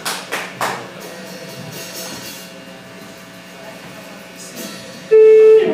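Live rock band on stage: a few sharp hits in the first second, then amplifier hum with faint held tones. About five seconds in, an electric guitar sounds a loud held note that slides down in pitch near the end.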